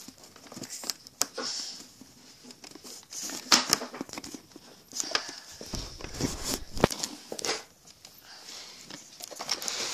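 Handling noise from a phone being moved about while recording: crinkly rustles and scattered clicks of fingers and fabric rubbing on the microphone, with a short low rumble about six seconds in.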